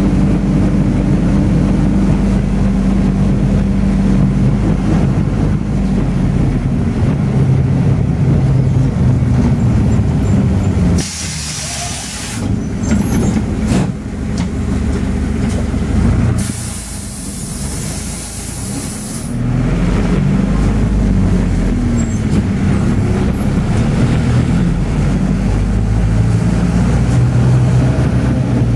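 Route minibus engine and road noise heard from inside the cabin while driving, the engine pitch rising and falling as it pulls away and changes speed. Twice, about eleven and seventeen seconds in, the engine sound drops and a high hiss sounds for a second or three.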